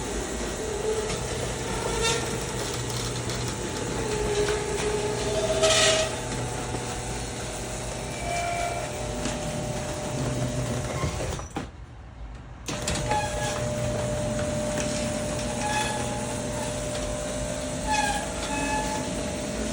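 Genie Intellicode garage door opener running as the door travels along its track: a steady motor hum with rattling and squeaks. It stops about twelve seconds in, then starts up again.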